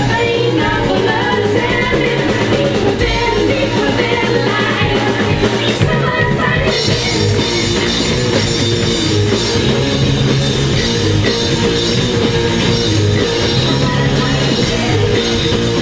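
Rock band music: a singer over electric guitar, drums and keyboards.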